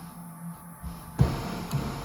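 A single sharp knock about a second in, with a lighter one shortly after, from parts being handled during the shifter install, over a steady low hum.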